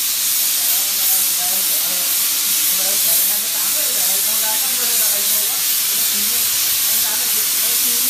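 200 A CNC plasma cutter's torch cutting metal: a loud, steady hiss of the arc and its air jet, with faint voices underneath.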